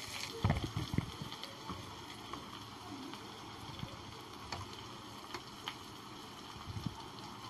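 Slotted spoon scooping fried vegetables out of a non-stick pan and dropping them into a bowl: a cluster of knocks and scrapes about half a second in, then scattered light taps and clicks.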